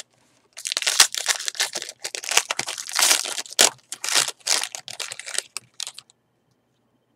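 Foil wrapper of a Topps baseball card pack crinkling and crackling as it is torn open, with a few sharper snaps. The crackling stops about six seconds in.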